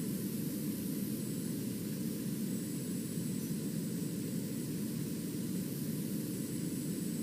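Steady, unchanging radio static: a dull rushing hiss from a receiver with no programme audio, and no alert tones or voice.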